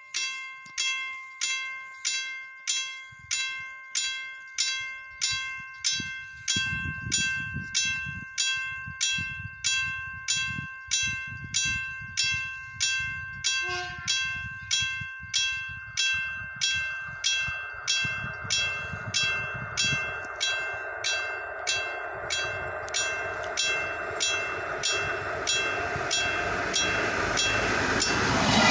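Level crossing warning bell striking about three times every two seconds while a Hellenic Train ADtranz class 220 diesel-electric locomotive approaches with a freight train. The rumble of engine and wheels grows steadily louder until the locomotive reaches the crossing near the end.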